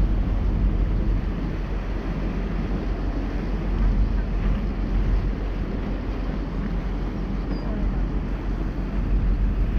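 Passenger cruise boat under way: a steady low engine drone mixed with the rush of water churned up in its wake.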